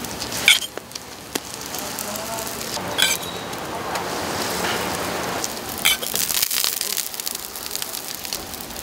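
Hotteok dough frying in oil on a flat griddle, a steady sizzle, while steel pancake presses are set down on the dough balls with three sharp metal clinks: about half a second in, about three seconds in, and near six seconds.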